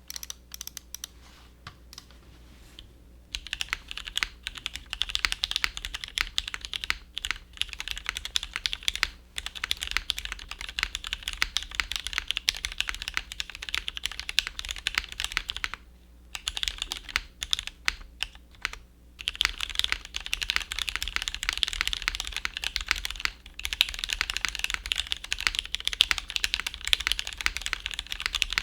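Typing on a Percent Studio Skog Reboot mechanical keyboard with lubed vintage Cherry MX Black switches in an aluminium plate, built without a dampener for more clack, and GMK keycaps. There are a few scattered keystrokes, then a steady run of clacky keystrokes from about three seconds in, broken by a couple of brief pauses. A low computer hum runs underneath.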